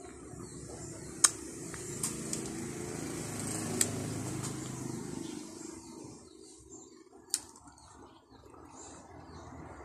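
Close-up mouth sounds of sucking the white pulp off santol seeds, with several sharp wet clicks and smacks, over a low rumble that fades out about halfway.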